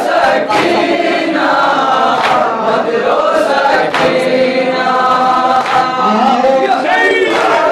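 Boys and men chanting an Urdu noha (a Shia mourning lament) together in unison, with sharp chest-beating (matam) slaps about every one and a half to two seconds.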